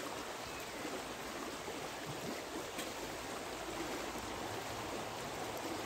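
Shallow river running over stones, a steady wash of water noise.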